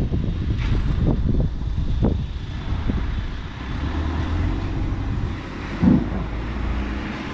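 Low, steady engine rumble of machinery spreading fresh beach pebble, with wind on the microphone. A few knocks come in the first three seconds, and a short, louder hum comes about six seconds in.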